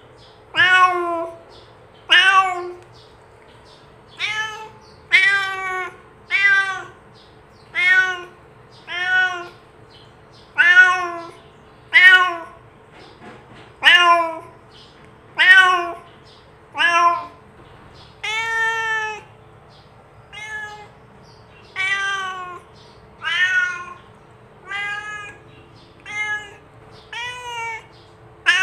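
A domestic cat meowing over and over, about one meow every second and a half, each call rising and then falling in pitch; one meow about two-thirds of the way through is longer and drawn out.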